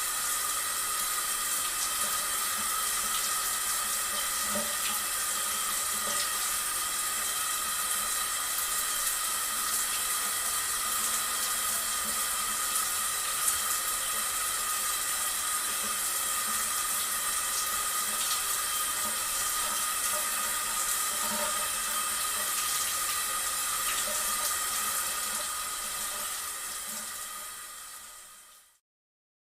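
Steady rushing water, like a waterfall or fountain, with an even hiss that fades out near the end.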